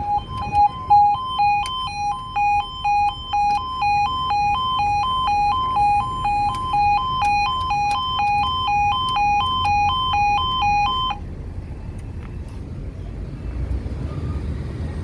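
Level crossing warning alarm sounding as the barriers lower: a loud two-tone warble that switches between a lower and a higher note about twice a second, then cuts off suddenly about eleven seconds in. A low rumble carries on after it.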